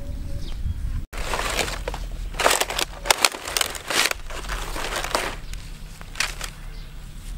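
Dry palm fronds crackling and rustling under a raw stingray as it is handled on them. The sound comes in several irregular bursts, loudest a couple of seconds in, over a steady low rumble.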